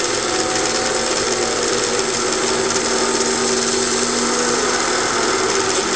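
Recorded stock-car race engines running at speed, a steady dense drone from a race soundtrack.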